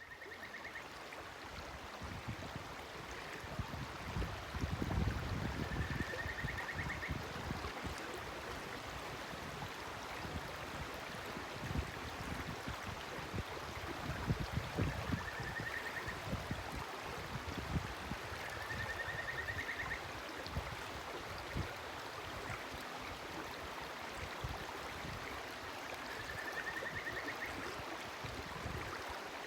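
A shallow, clear river flowing and gurgling steadily over its bed. A bird calls over it with a short rising trill, five times at intervals of several seconds.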